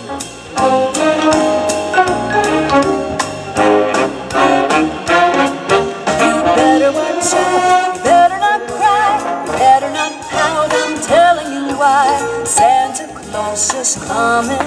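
Big-band jazz music with brass instruments over a steady beat.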